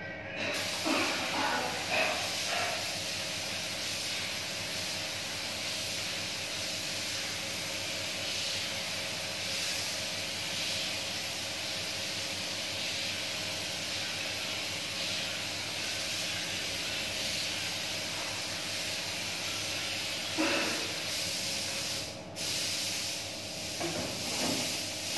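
Gravity-feed compressed-air paint spray gun spraying paint, a steady hiss that cuts out briefly near the end as the trigger is let off.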